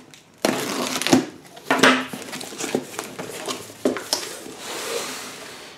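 Packing tape on a cardboard box being cut and pulled loose, then the box's cardboard flaps folded open, with a series of sharp scrapes and crackles and a longer rustle near the end.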